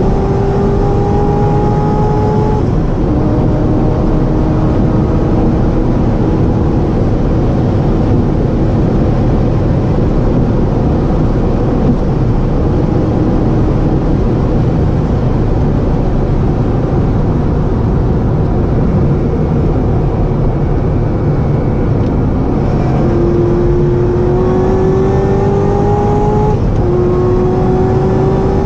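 Cabin sound of a Corvette ZR1 at about 320 km/h: a steady, loud roar of wind and tyres. Under it the supercharged 6.2-litre V8's note climbs slowly, eases off a couple of seconds in, and comes back, climbing again, in the last few seconds.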